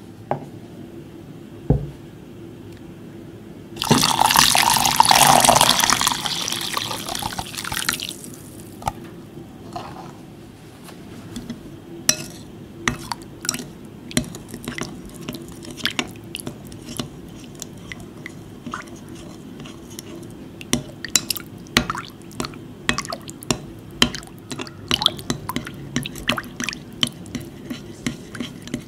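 Water pouring into a glass bowl of powdered sugar and jelly candies for about four seconds. Then a spatula stirs the liquid with small sloshes and sharp, irregular clicks and taps against the glass.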